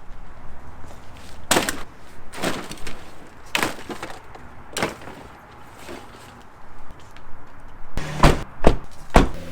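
A series of sharp knocks and clunks, irregularly spaced with three close together near the end, over a low steady rumble.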